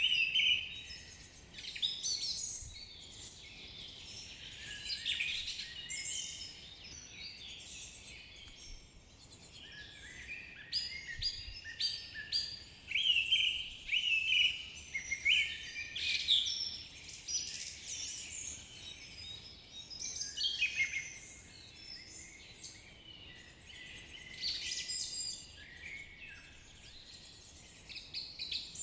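Several songbirds singing, with many short chirps and trills in overlapping bursts that thin out twice into quieter spells, over a faint steady background.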